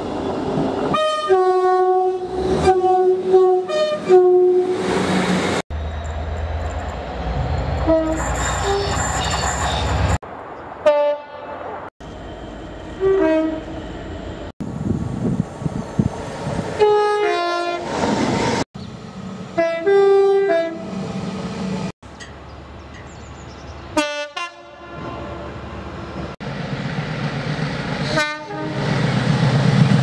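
Horns of passing British passenger trains sounding in short blasts that switch between a lower and a higher note, in a string of separate clips cut abruptly one after another. The engine and wheel noise of the passing trains runs underneath.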